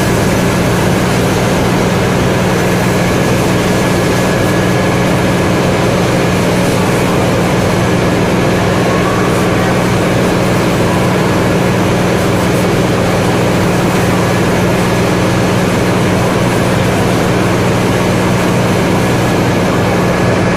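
Flour packing machinery running in a loud, steady drone: a constant low hum under an even mechanical hiss, unchanging throughout.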